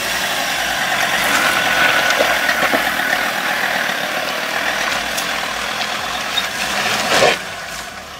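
Ford Ranger pickup engine working under load in two-wheel drive, trying to get up an off-road obstacle without getting through. There is a sharp knock about seven seconds in.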